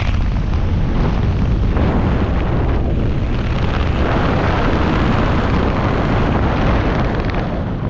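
Wind buffeting the camera microphone during a parachute canopy descent: a loud, steady rush with a heavy low rumble, easing slightly near the end.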